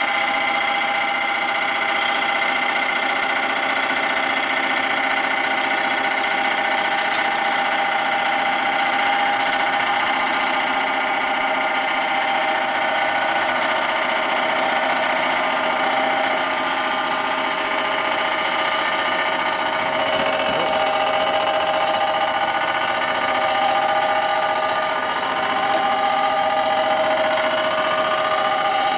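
Milling machine running with its cutter facing the chrome-plated primary cover of a Harley shovelhead, a steady machine whine. The pitch wavers a little in the last third.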